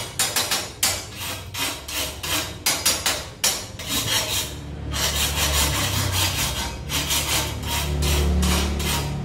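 Quick repeated scraping and rubbing at a small charcoal grill as the coals are poked with a stick and the wire grate is shifted, over a steady low hum that grows louder near the end.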